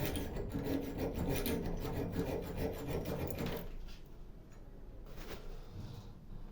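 Quick, repeated rasping strokes of a hand tool scraping on a washing-machine part, which stop about three and a half seconds in, leaving only a faint rubbing.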